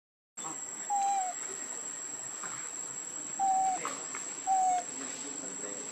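Steady high-pitched insect trill, with three short whistle-like calls, each a clear level note dipping at the end.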